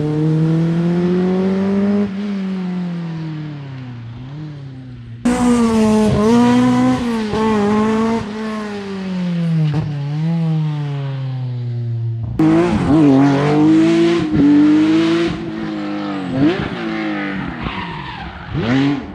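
Rally car engines revving hard, their pitch climbing and dropping through gear changes as the cars pass. The sound is three separate recordings joined by abrupt cuts, about 5 s and 12 s in.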